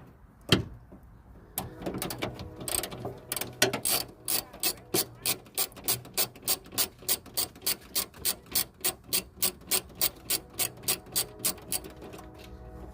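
3/8-inch ratchet with a 10 mm socket clicking as the bolts holding a third brake light are loosened: a knock near the start, scattered clicks, then an even run of about four clicks a second that stops near the end.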